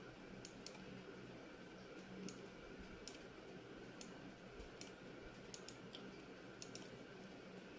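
Faint, irregular clicks of a computer mouse and keyboard, about a dozen, over a low steady room hum.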